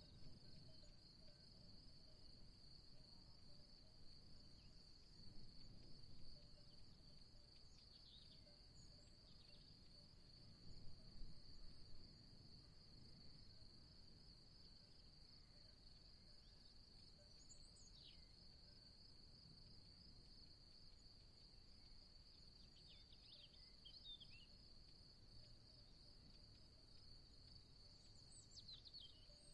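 Faint nature ambience: a steady high-pitched insect chirring like crickets runs throughout, with a few brief high chirps scattered through it. Soft low wind gusts come and go, strongest about a third of the way in.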